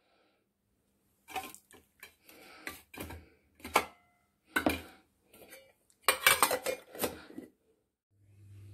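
Stainless steel bowl and lid clattering: a run of knocks and clinks of metal on metal, with one brief ring about four seconds in and a quick flurry of clinks around six to seven seconds, as a bowl of dough is handled and covered with a steel lid.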